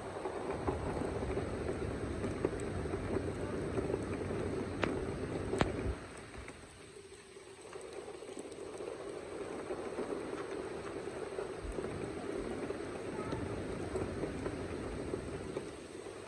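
Heavy rain falling, with two sharp taps about five seconds in; the rain eases for a couple of seconds around the six-second mark, then picks up again.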